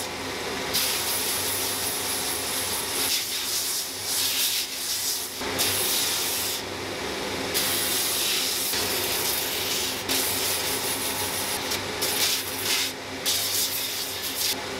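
Belt sander running with a steady hum while a wooden hurley is pressed onto the moving belt, the abrasive hissing against the wood in spells of a second or few as the hurl is worked and lifted off again.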